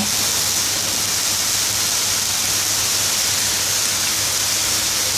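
Minced pork frying in a little lard in a steel wok: a steady hiss of sizzling fat.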